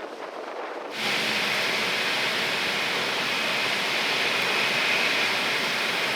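Typhoon winds making a steady rushing noise, with a quieter first second and then a sudden jump to a louder, even rush.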